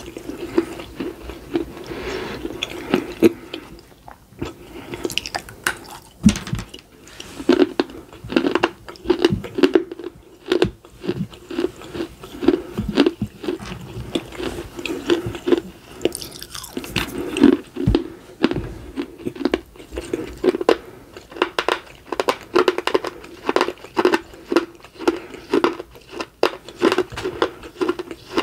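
Crunching and chewing of a miniature fired red-clay pot: pieces of the baked clay are bitten off and chewed. The crunches are many, sharp and irregular.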